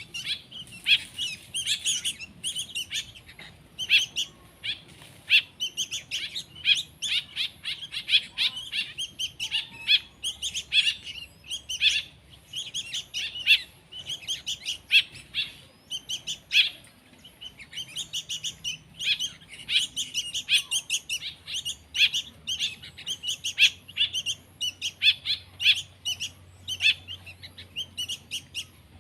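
Hand-reared songbird chicks chirping in rapid, continuous high-pitched bursts, the begging calls of young birds at feeding time.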